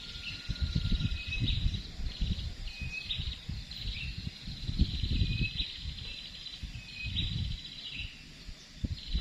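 A high, buzzy animal call repeating roughly every second, each a short lower note followed by a longer buzzing note, over irregular low rumbling.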